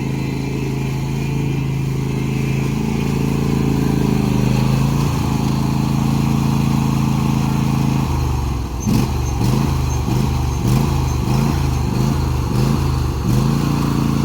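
John Deere D125 lawn tractor's 20-horsepower V-twin engine running steadily. About eight seconds in, its note starts pulsing, rising and dipping about one and a half times a second for some five seconds, then settles back to a steady run.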